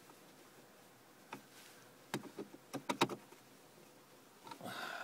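Plastic shift knob of a Smart car handled on the gear lever: a click a little over a second in, then a quick run of sharp clicks and light knocks around two to three seconds in.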